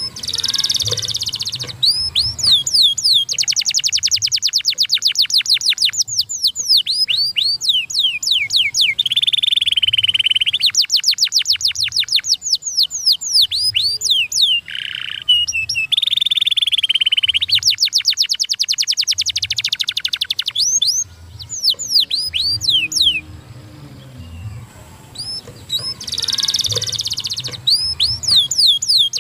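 Domestic canary singing a long, fast song of rapid trills: runs of quick repeated whistled notes sweeping downward, broken by buzzy rolled phrases and a few short pauses.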